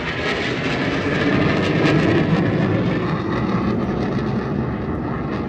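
Jet aircraft noise passing over, a dense rumble that swells to its loudest about two seconds in and then eases off.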